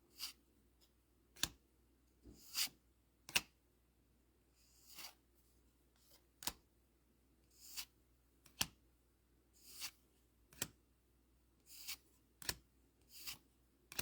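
Score Dragon Ball Z trading cards being handled and flipped through one at a time: a run of short card-stock snaps and slides, roughly one every half second to a second.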